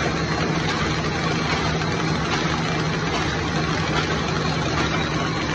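Paper bag-making machine running, kraft paper web feeding over its steel rollers: a steady, even mechanical din with a constant low hum.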